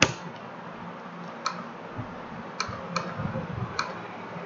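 Computer mouse clicking: about five short, sharp clicks spread over a few seconds, with the first right at the start, against faint room hiss.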